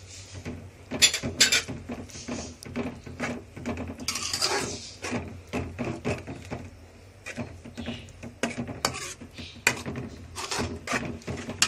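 A perforated metal spoon scraping and knocking irregularly against a metal kadai as a thick masala is stirred and fried with freshly added dry spices.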